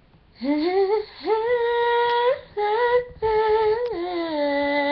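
A woman singing alone, unaccompanied: a few long held notes, sliding up into the first, with the last one lower and held the longest.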